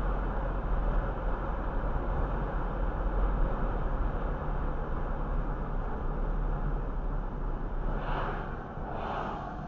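Steady road and engine noise inside a car travelling at about 30 mph, easing off as the car slows. Near the end come two short hissing sounds about a second apart.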